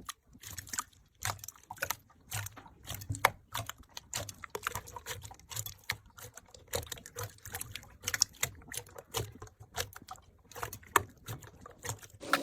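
Slime being squeezed and worked by hand, giving a steady stream of irregular small wet clicks and pops.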